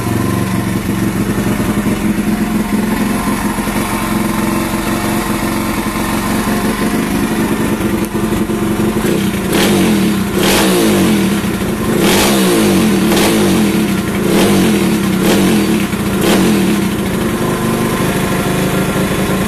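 Stomp 140cc pit bike's single-cylinder four-stroke engine idling, then blipped through about seven short revs roughly once a second in the middle, before settling back to idle.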